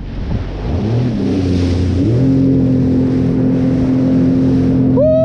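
Jet ski engine throttling up: its note climbs about a second in, then holds steady at speed.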